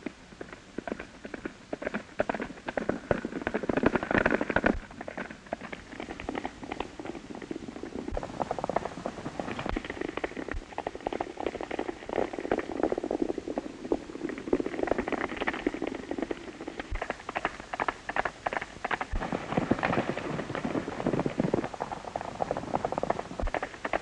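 Hoofbeats of several horses galloping on a dirt trail: a fast, irregular clatter that swells louder twice as the riders pass.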